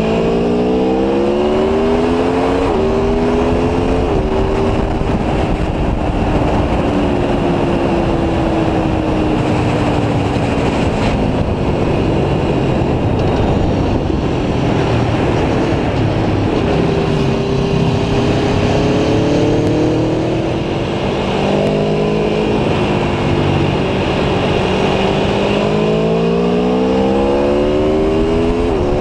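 Aprilia Tuono V4 1100 Factory's 65-degree V4 engine heard onboard while riding, with heavy wind rush on the microphone. The engine pitch climbs and drops abruptly at each upshift a few seconds in and again near the end, and eases down through the middle.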